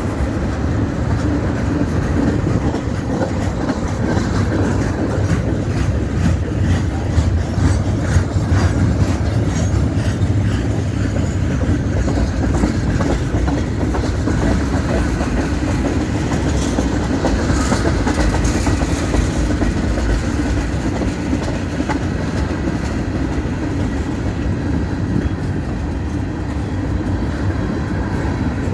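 Freight cars of a manifest train rolling past, tank cars and covered hoppers. Their steel wheels make a steady rumble and clatter on the rails.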